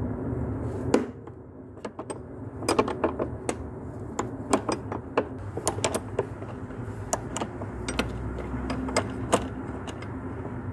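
Flare nut wrench clicking and tapping on the clutch master cylinder's hard line fitting as it is undone: a run of short, sharp metallic clicks, some in quick succession.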